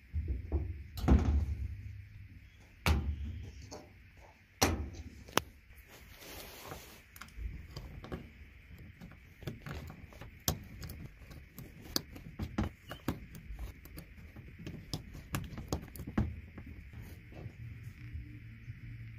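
Gun-handling sounds: a few heavier knocks in the first five seconds, the loudest about a second in, then a long run of small metallic clicks as .22 rimfire cartridges are pressed one by one into the Gevarm A6's steel magazine, over a faint steady hiss.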